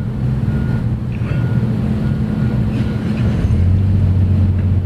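A motor vehicle's engine running with a steady low hum. About three and a half seconds in, the hum shifts to a lower, stronger tone.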